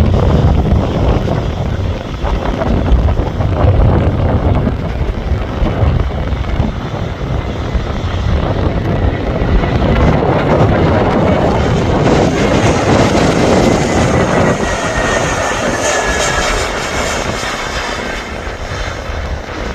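Jet airliner engines passing close overhead. Their whine falls in pitch past the middle, and strong wind buffets the microphone throughout.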